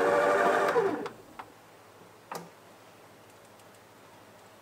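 Stand mixer motor winding down, its pitch falling until it stops about a second in, followed by two light clicks as the balloon whisk is handled over the steel bowl.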